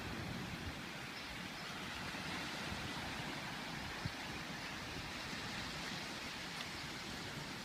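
Small waves washing onto a sandy beach: a steady hiss of surf, with a low, uneven rumble of wind on the microphone.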